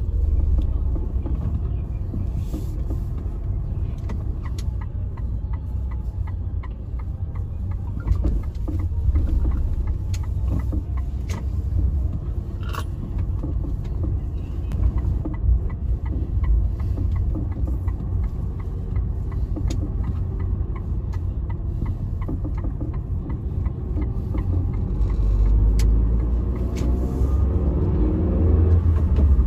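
Car driving, a steady low rumble of engine and road noise, growing louder and rising in pitch near the end as it speeds up.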